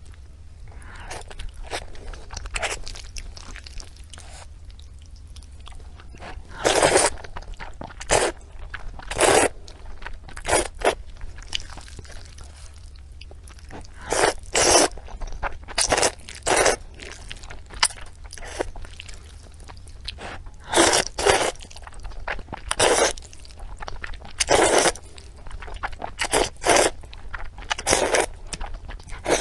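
Close-miked eating of pork intestines: loud chewing and bites at irregular intervals, sparse at first and frequent from about a quarter of the way in.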